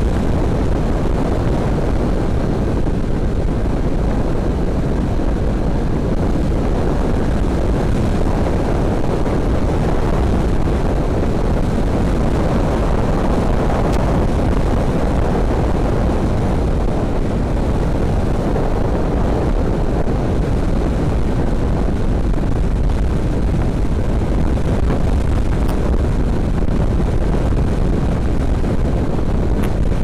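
Steady wind rush and road noise from a motorcycle riding at speed, heard through a helmet-mounted camera's microphone.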